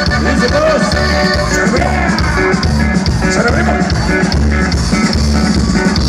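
Live norteño band music played loud over a concert sound system, with a steady repeating bass beat and sung vocals.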